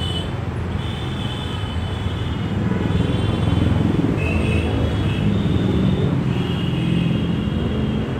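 Steady low mechanical rumble with a hum in it, swelling slightly midway, with thin high-pitched tones that come and go over it.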